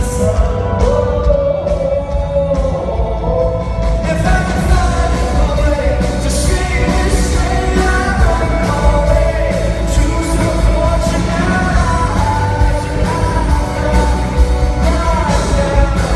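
A male lead singer with a live rock band: a sung melody over heavy bass and a steady drum beat, loud throughout.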